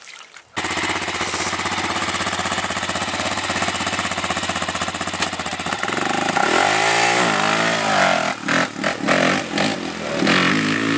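Honda TRX400EX sport quad's four-stroke single-cylinder engine running steadily, then revving up and pulling away about six seconds in, its pitch rising and falling through several throttle surges.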